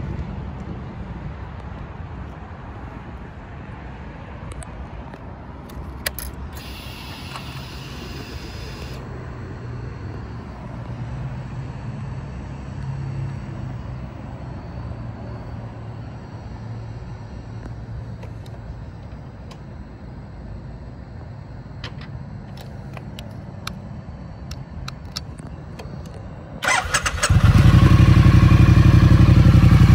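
Triumph Street Twin's 900 cc parallel-twin engine cranking and catching about 27 seconds in, then idling loudly and steadily. Before that there is only low background noise with a few light clicks.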